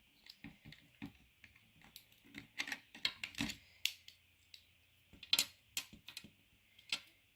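Irregular small clicks and taps of plastic anatomy-model pieces being handled and pressed back into place in the toy body, with a denser cluster around the middle.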